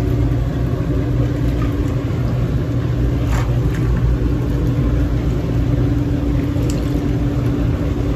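Jacuzzi tub's whirlpool jets running: a steady pump-motor hum and rumble under churning, bubbling water.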